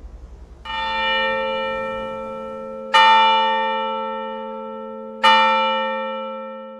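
Church bell tolling three times, a little over two seconds apart, the first strike softer. Each strike rings on and slowly dies away.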